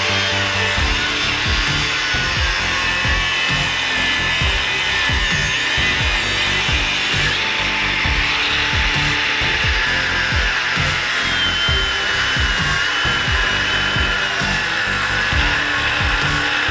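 Angle grinder running its disc against a flat iron bar, grinding steel, with a brief let-up around eight seconds in. Background music with a steady beat plays underneath.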